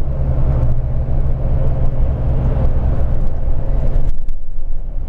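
Bus engine and tyre noise inside the cabin at highway speed: a steady low rumble with road hiss over it. The hiss drops away about four seconds in while the rumble carries on.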